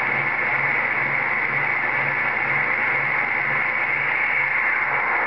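CB radio putting out a steady whooshing hiss as soon as the transmitter is unkeyed, strongest in a high band. The operator suspects it is a reflection of his own signal.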